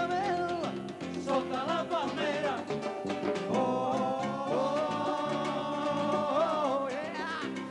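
Live Catalan rumba played by a full band, with a lead vocal over guitar and Latin percussion including timbales. Several long held notes sound through the second half.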